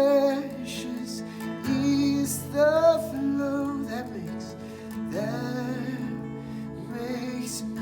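Worship music: acoustic guitar accompanying a voice singing a slow melody.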